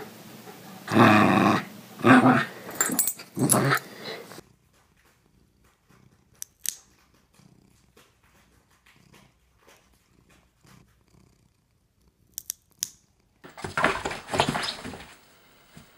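A corgi puppy growling and barking in play, three loud bursts in the first four seconds. Then it goes quiet but for a few sharp clicks, and near the end comes a scuffling, rustling stretch.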